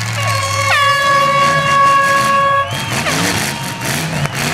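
An air horn sounds one long held blast, rising in pitch about a second in and cutting off near the three-second mark, over demolition derby car engines revving in the arena.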